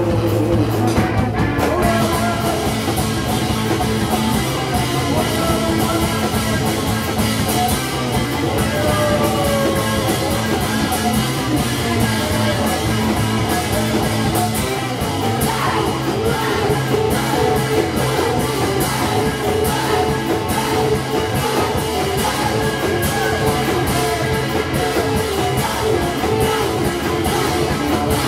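Live rock band playing loud and without a break: electric guitar, drum kit and keyboard, with held droning notes underneath.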